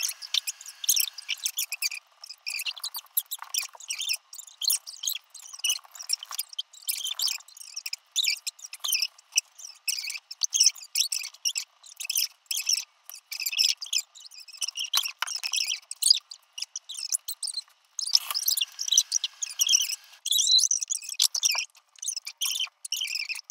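Fast-forwarded audio: talking voices sped up into high, squeaky chipmunk-like chatter, a quick string of short chirping syllables with no low end.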